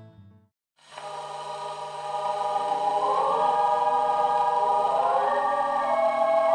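Choral, chant-like music fades in after a brief silence: sustained voices hold long, slowly shifting notes over a steady low drone. The last moment of acoustic guitar music cuts off just before the silence.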